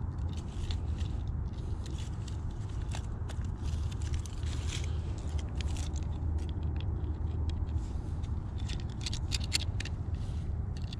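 Close handling noise: rustling, scraping and irregular small clicks as a fish and a plastic lip-grip scale are handled, over a steady low rumble.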